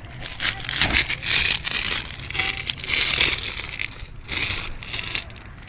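Irregular crunching and scuffing noise of someone moving about on a gritty asphalt-shingle roof with the phone in hand, loudest about a second and three seconds in and easing off near the end.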